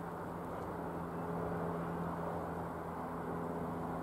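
Jabiru UL-450 light aircraft's Jabiru 2200 four-cylinder engine and propeller running steadily as it flies over: a low, even hum that grows a little louder about a second in.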